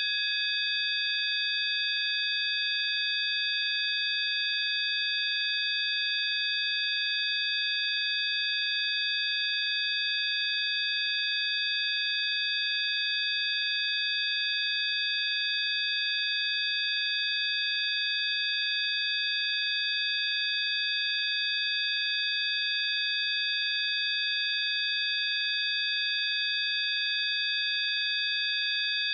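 Electronic sine tones: about five steady high-pitched pure tones sounding together as one chord, held without any change.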